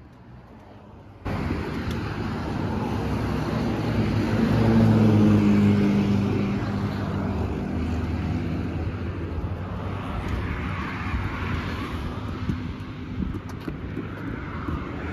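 Road traffic passing on the road below: a steady rush of tyres and engines. About a second in the sound comes up, and one vehicle's engine grows louder and passes at around five seconds.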